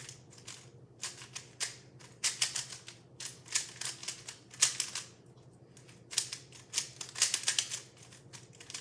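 A speed cube being scrambled: rapid plastic clicking of its layers being turned, in uneven bursts with short pauses between.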